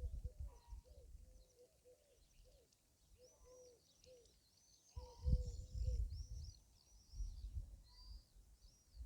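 Wind gusting against the microphone in low rumbles, loudest at the start and again about five and seven seconds in, while birds chirp and call continuously in the background.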